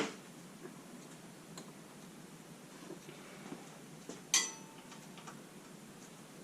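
Faint scattered ticks and one sharp metallic clink with a short ring about four seconds in, from handling a bicycle's front derailleur.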